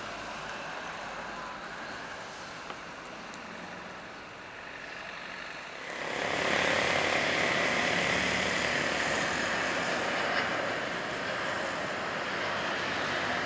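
Jet airliner noise on landing: a steady rushing sound from a Boeing 737 on its landing roll, then about six seconds in a louder jet roar with a high whine as an Airbus A350 comes in low to touch down.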